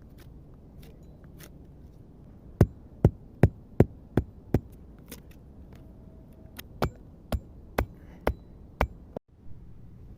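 Firewood being chopped with a hatchet: a run of six sharp strikes in about two seconds, a pause, then five more at a slightly slower pace.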